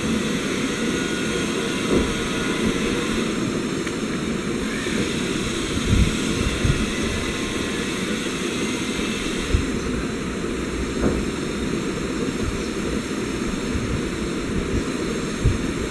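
Steady rushing background noise, with a few soft low thumps.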